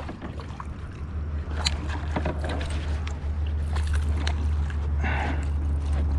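A hooked pickerel splashing and thrashing at the surface right beside a kayak, with scattered sharp splashes over a steady low rumble that comes in about a second in.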